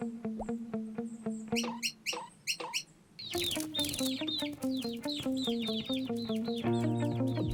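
Cartoon bird chirps and calls over light background music. About three seconds in, the music grows louder and fuller, with quick repeated falling high notes over a stepping bass line.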